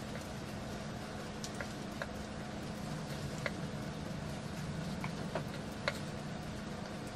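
Quiet room tone with a low steady hum, and a few faint, scattered ticks and clicks from handling a curling wand while winding hair around it.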